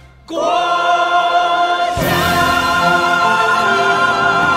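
Choir singing long held notes over musical accompaniment. The music dips briefly at the start, comes back in, and a new phrase enters about two seconds in.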